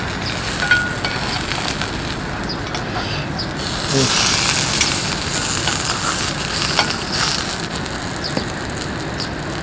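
Pizza slices sizzling in a frying pan: a steady frying hiss that swells about four seconds in, with a few light clicks of utensils against the pan.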